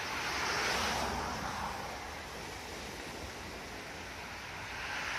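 Ocean surf breaking on a sandy beach: the wash of one wave swells about a second in and fades, and the next begins to build near the end.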